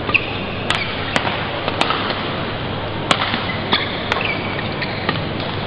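Badminton rackets striking a shuttlecock in a fast doubles exchange: a string of sharp cracks, about six in four seconds, over the steady background noise of the hall.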